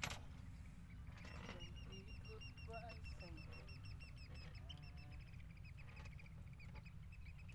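A bird calling in a long rapid series of short high chirps, starting about a second in and fading near the end, over a steady low hum.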